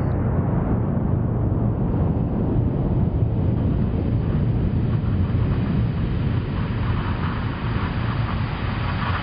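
Hydraulic press running under load while crushing plywood: a steady low rumble with a rough, crackly hiss over it.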